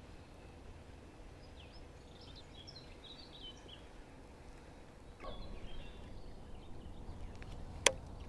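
Small birds chirping over a low, steady rumble of wind. About five seconds in, louder nearby handling noise joins, and a single sharp click, the loudest sound, comes near the end.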